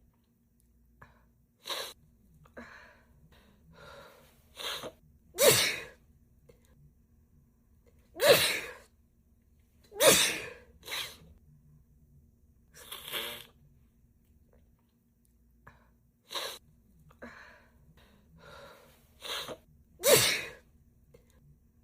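A woman sneezing over and over in a fit, each sneeze a short sharp burst with softer breaths and catches in between. The loudest sneezes come about five, eight, ten, thirteen and twenty seconds in, and the run of sneezes repeats as a loop.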